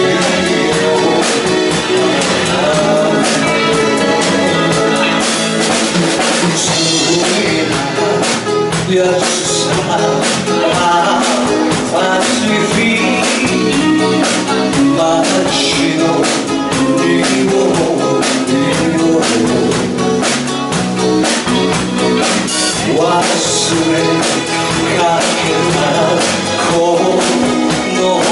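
Live rock band playing: a male vocalist singing into a microphone over electric guitar, electric bass and a drum kit keeping a steady beat.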